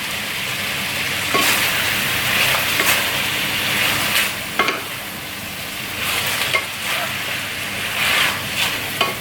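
Chicken frying in a pan, sizzling steadily while a spatula stirs it, scraping and knocking against the pan every second or so.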